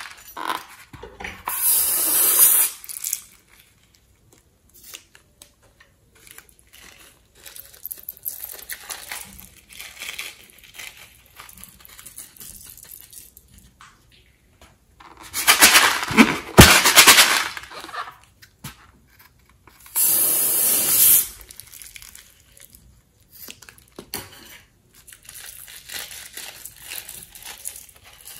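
Slime being worked by hand in a glass bowl: soft sticky clicks and crackles throughout, broken by three loud rushing bursts, about two seconds in, around sixteen seconds and around twenty seconds.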